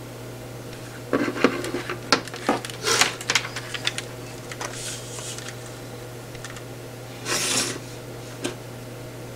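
Handling noise from a smartphone and headphone cable on a wooden tabletop: a quick run of clicks and knocks in the first few seconds, then a short rubbing scrape and a last click near the end, over a steady low electrical hum.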